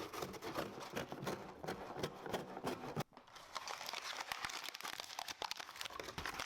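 Packaging crinkling and rustling as it is handled: a dense run of small crackles, with a brief pause about three seconds in.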